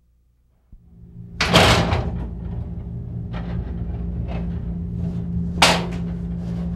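Steel-barred prison sliding gate clanging, with one loud clang about a second and a half in and another near the end, and fainter knocks between them. A steady hum runs underneath from just before the first clang.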